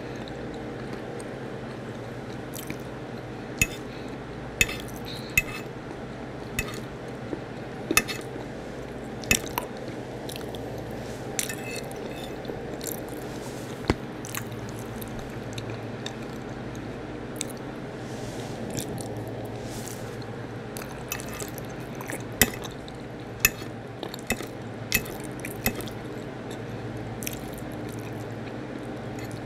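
Close-up eating sounds: a person chewing mouthfuls of corn and macaroni and cheese, with frequent sharp wet clicks and smacks, about one every second or two, over a steady low hum.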